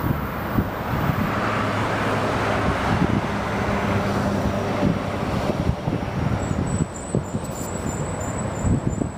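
A passenger train running past with a steady low hum that swells in the middle, while wind buffets the microphone with frequent low thumps. A faint pulsing high tone comes in near the end.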